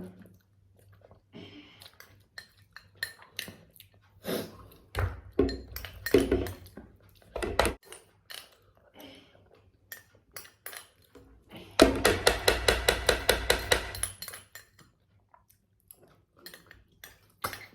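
Scattered clinks and knocks of a plate and utensils while eating. About twelve seconds in, a louder two-second run of rapid pulses with a pitched tone, about ten a second.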